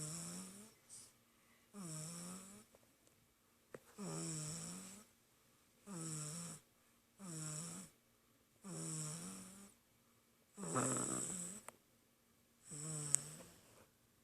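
A baby snoring in its sleep: a steady run of short snores, one every one and a half to two seconds. Each is a low pitched hum that dips and comes back up, with a hissy edge. One snore about three-quarters of the way through is louder and longer.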